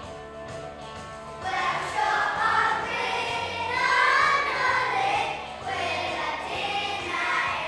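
A group of children singing together over backing music; the voices come in about a second and a half in over music that was already playing.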